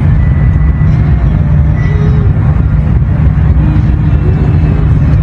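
Steady, loud low rumble inside the carriage of a Whoosh high-speed train running at about 350 km/h.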